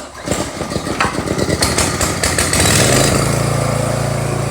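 Small gas engine of a Powersmart 3400 psi pressure washer starting on choke: it catches at once, runs unevenly for a few seconds, then settles about three seconds in into a steady run.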